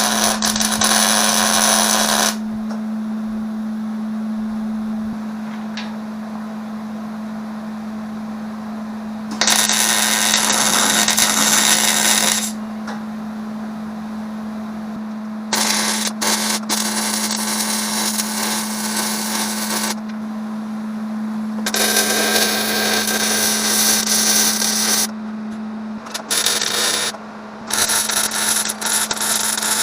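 Metalworking on a steel truck frame: about six bursts of harsh, crackling noise, each lasting from under a second to a few seconds, separated by pauses, over a steady low hum.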